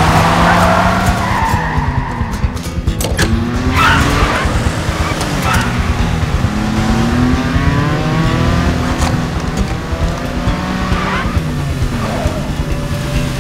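Two sports-car engines revving hard, their pitch climbing and dropping through the gears, with short tyre squeals on the bends about a second in, near four seconds and again near eleven seconds.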